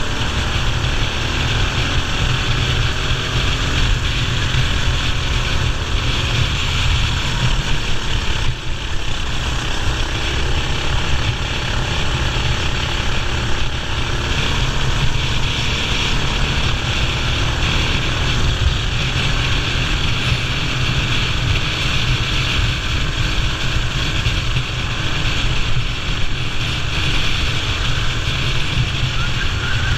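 Racing kart's engine running hard at race speed, loud and continuous, with the revs wavering up and down through the lap.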